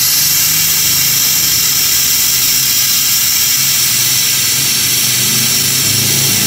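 Air-powered suction pump hissing steadily as it draws spent carbon-cleaning fluid out of the engine's cylinders through a tube into a clear catch canister, with a low steady hum underneath.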